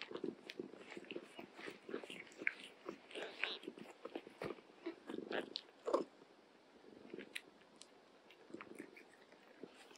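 Cats licking and grooming nursing kittens close up: irregular wet licking, smacking and suckling sounds, busiest in the first seven seconds, then thinning out.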